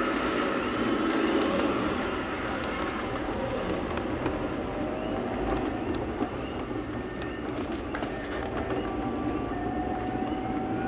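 Steady rumbling and rattling noise of a moving vehicle carrying the recorder along a road. A faint tone slowly rises near the end.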